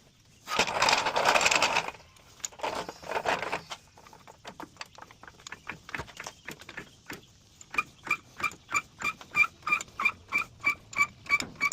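Floor jack being pumped: an even run of squeaky clicks, about three a second, begins about eight seconds in. Two louder rushing noises come a few seconds before it.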